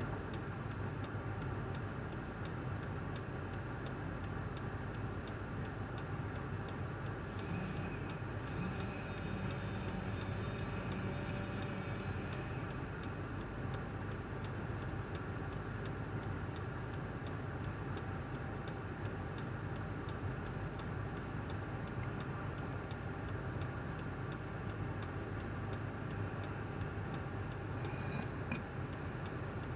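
An engine running steadily at one speed, with a fast, even ticking through it.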